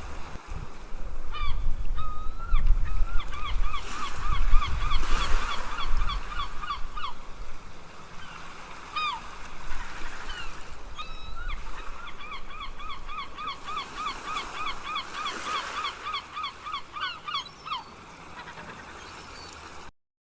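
Gulls calling: scattered single squawks and two long runs of fast, repeated yelping notes, about six a second, over a low rumble. The sound cuts off abruptly just before the end.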